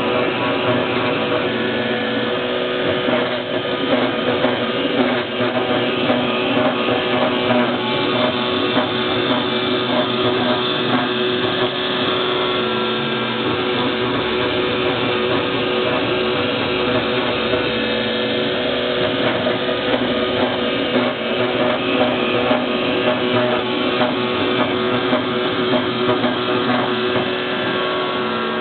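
Background guitar music.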